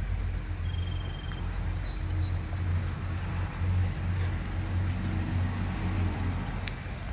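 Steady low rumble of a motor vehicle's engine, under a steady hiss of rain.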